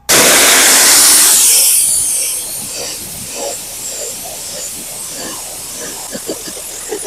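High-pressure water jet from a pressure washer wand blasting grime off a concrete step. The spray starts abruptly with a loud hiss, then eases after about two seconds into a steadier spray with small spatters.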